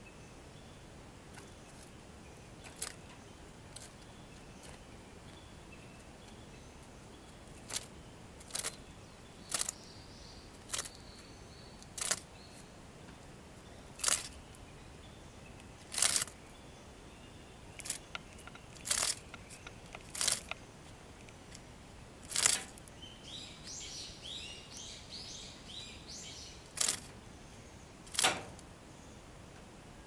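A series of about a dozen sharp, irregular clicks and taps, spaced one to two seconds apart, with a short patch of quick chirping about three-quarters of the way through.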